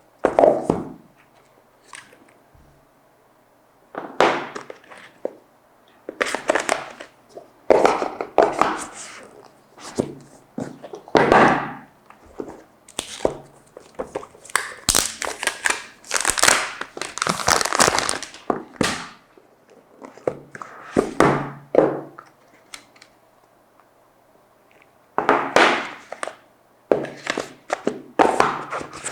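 Phone packaging being handled and unwrapped: plastic film crinkling and tearing, and cardboard box parts thunking, in irregular bursts with short pauses.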